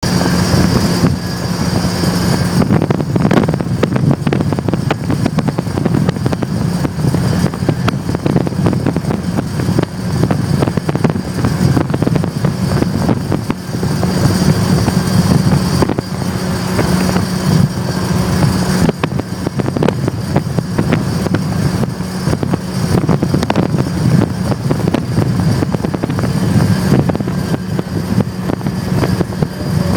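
Nissan 240SX with an SR20DET engine running, with a steady low hum and dense rapid clicking. The noise is so loud that the owner suspects the newly installed one-piece aluminum driveshaft and wonders whether its u-joints need grease.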